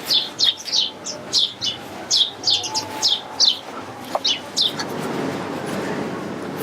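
Small birds chirping, a rapid run of short, sharp high chirps, two or three a second. About four and a half seconds in the chirps stop and a steady low rushing noise takes over.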